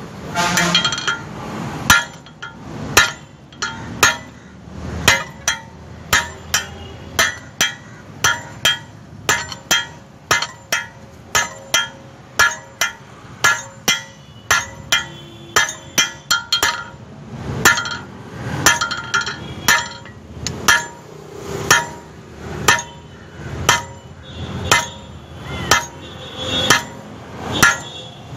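Blacksmith's hand hammer striking steel on an anvil while forging tongs. The blows come in a steady rhythm of a little more than one a second, and many leave a short metallic ring.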